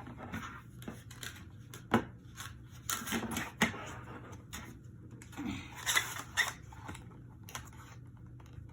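Small plastic makeup items and packaging being handled: a few sharp clicks and knocks with rustling between them.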